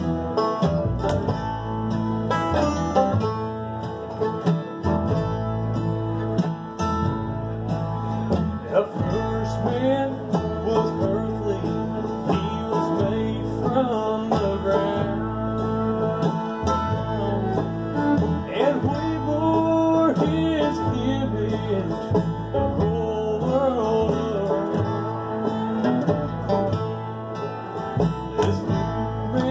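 Acoustic bluegrass band playing a tune on acoustic guitar, five-string banjo, fiddle and upright bass, the bass keeping a steady beat.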